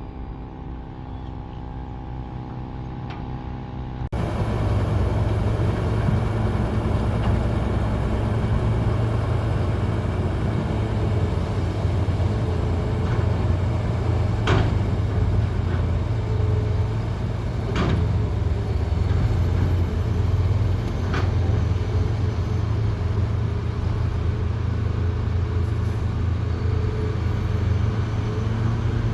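Heavy diesel earthmoving machinery, large excavators and dump trucks, running with a steady low rumble, broken by a few sharp knocks. For the first four seconds there is a quieter, steady hum with a clear pitch; then the louder rumble cuts in abruptly.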